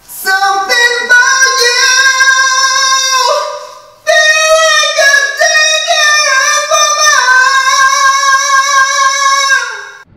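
A man singing a cappella in a high register: two long phrases of held, stepping notes, with a short break about three seconds in.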